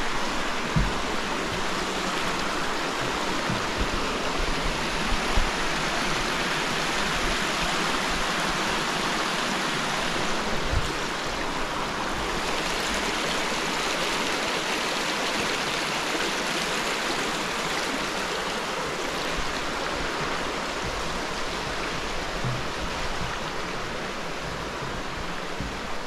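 River water flowing steadily, a constant hiss of moving water, with a few brief low thumps.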